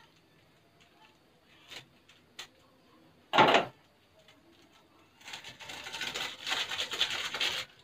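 Stirring in a metal cooking pot: a spoon scraping and rustling through the food for a couple of seconds near the end, after a single clunk about midway.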